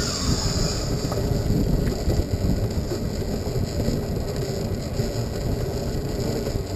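Wind buffeting an outdoor action-camera microphone, a steady, uneven low rumble, with a brief hiss in the first second.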